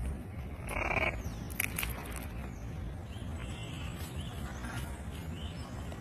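Severe macaw working an unshelled peanut in its beak: a short harsh crunch about a second in, then a few sharp cracks of the shell.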